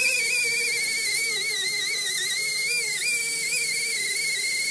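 Air-powered grinder running at a high, steady whine with air hiss, its pitch wavering a little as it is pressed against the car's wheel-well metal.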